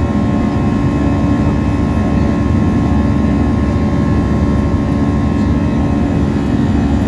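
Airliner cabin noise during the climb after take-off: steady engine and airflow noise heard through the cabin, mostly low, with a few constant hums.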